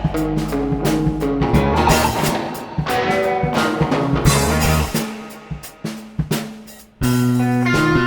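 Instrumental progressive rock: electric guitar through an amp-simulator pedal, electric bass and drum kit playing together. The music thins out and gets quieter from about five seconds in, then the full band comes back in loudly and suddenly near the end.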